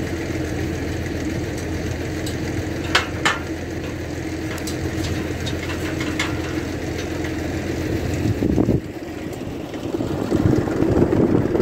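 Tractor engine idling steadily close by. A couple of sharp metallic clinks about three seconds in, and a few fainter ones after, come from the chain and latch of a galvanised steel field gate being unhooked and opened.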